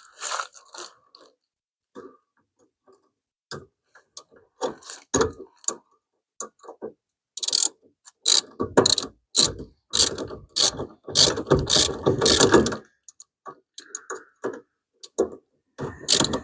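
Hand ratchet wrench tightening the bolts on a clutch pedal assembly: the pawl clicks in short runs, scattered at first, then in long fast strokes from about halfway in, pausing, and starting again near the end.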